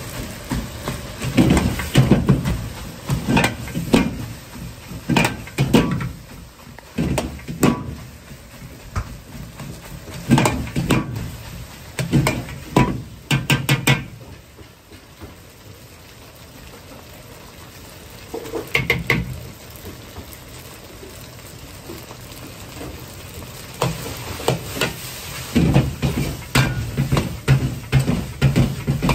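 Metal ladle striking and scraping a large 60 cm iron wok as fried rice is stir-fried over a high gas flame, the rice sizzling. The clanks come in bursts of quick strikes, with a quieter stretch of steady sizzle and burner noise about halfway through.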